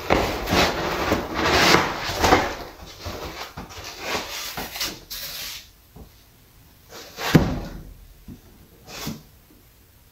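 Black foam packing insert being pulled and scraped out of a wooden crate, rubbing steadily for about five seconds. Then a few knocks on the wooden crate, the loudest about seven seconds in.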